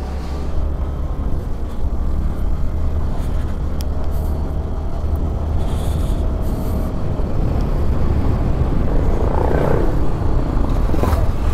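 Riding noise from a moving motorcycle: a steady low rumble of wind and road that grows slowly louder, with a brief swell about nine seconds in. No distinct engine note stands out.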